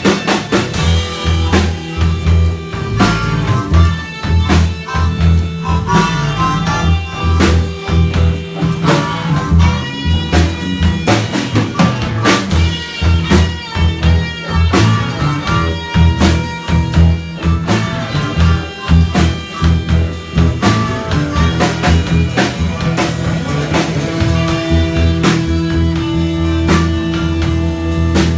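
Live band jamming a blues number: a drum kit keeping a steady beat under a strong bass line, with a lead instrument playing wavering notes over it.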